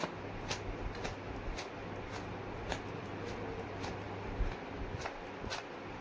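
Towel slapping and rubbing against long wet hair as it is dried: a string of sharp crisp slaps, roughly two a second, over a steady low hum.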